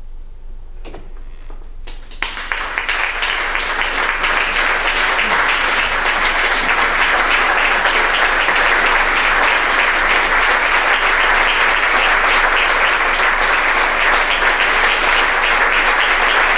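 Theatre audience applauding: the clapping starts about two seconds in, swells quickly and then holds steady and loud.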